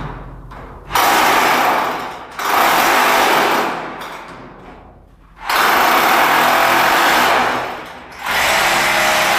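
A handheld power tool runs in four bursts of one and a half to two seconds each. Each burst starts abruptly at full speed and trails off as the trigger is released.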